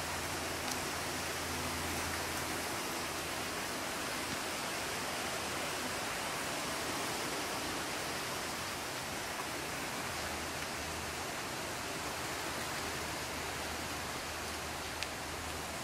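Steady, even hiss of outdoor background noise, with a faint low hum at times and a few faint clicks.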